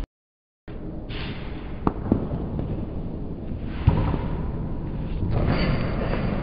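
About half a second of dead silence where the recording cuts, then the steady noise of a large indoor hall with a few sharp knocks, the loudest about four seconds in.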